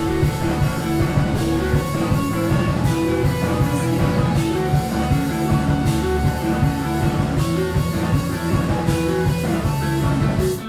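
Live rock band playing an instrumental passage: electric guitars over a drum kit with steady cymbal and drum hits.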